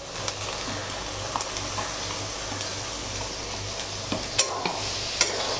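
Green peas being stirred into a tomato chutney frying in a metal wok with a metal spatula: a steady sizzle, with a few sharp scrapes and taps of the spatula against the pan.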